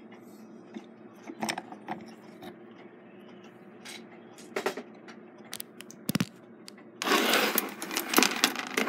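A steel clock mainspring and brass great wheel being worked by hand on a bench: scattered light metallic clicks, then about seven seconds in a louder run of metal clinking and rattling as the spring is worked off the great wheel arbor.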